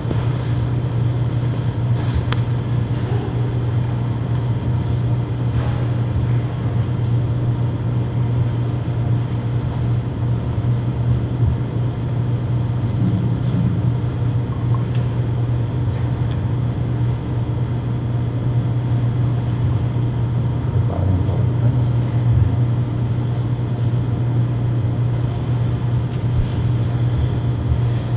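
Steady low hum of background room noise, unchanging throughout, with a few faint knocks.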